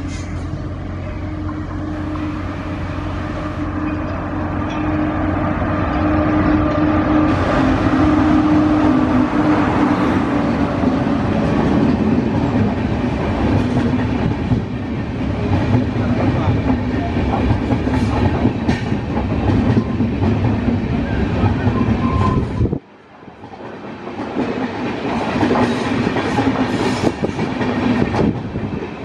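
Indian Railways WAP5 electric locomotive and its express passenger coaches running past at speed: a steady hum that grows louder as the train closes in, then the rush and clickety-clack of the coaches' wheels over the rail joints. The sound drops out suddenly near the end and the passing clatter starts again.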